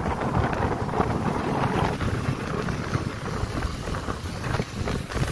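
Wind rushing over the microphone of a moving motorcycle, with its engine and road noise and those of other motorcycles riding close by.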